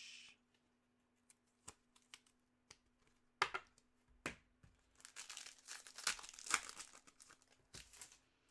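Foil trading-card pack wrapper crinkling and tearing, with scattered light clicks and snaps of cards being handled. The crinkling is densest over a couple of seconds in the second half.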